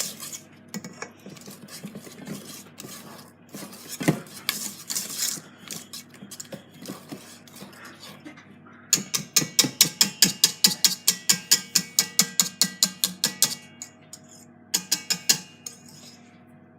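A utensil beating cake batter in a bowl, clinking against the side: scattered clinks and scrapes at first, then rapid even strokes, about six a second, for some four seconds from about the middle, and a short burst of a few more near the end.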